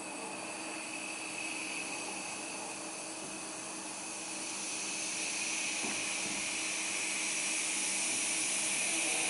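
Electric drives of an Orthoglide 5-axis hybrid parallel robot whirring as the robot moves, a steady hissing whine that slowly grows louder, with a faint click about six seconds in.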